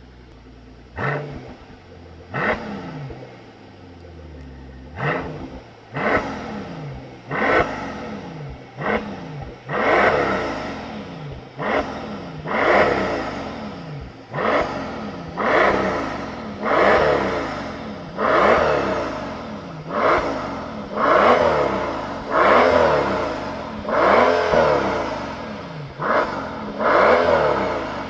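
Mercedes-Benz S65 AMG's twin-turbo V12 being revved while standing: after a second of idle, a long run of throttle blips, each rising sharply and falling back to idle, coming every second or two and growing longer and louder toward the end.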